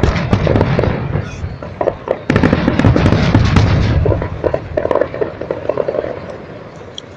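Aerial fireworks shells bursting with deep booms, then a second heavy barrage about two seconds in. This gives way to dense crackling that fades out over the last couple of seconds.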